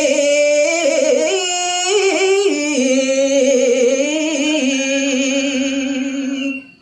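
A man singing Balinese pupuh Ginanti, a geguritan chant, unaccompanied: long held notes with a wavering vibrato and slow melismatic turns between pitches. The voice stops just before the end.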